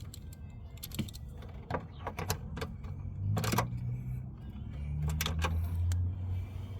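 Scattered metal clicks and clinks of a hand tool tightening a fastener on a coolant reservoir mount. A low steady hum comes in about three seconds in.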